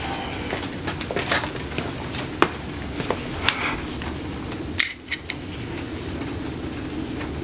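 Scattered small metallic clicks and clinks from handling a new rear axle's CV joint, with one sharper click about five seconds in, over a steady low hum.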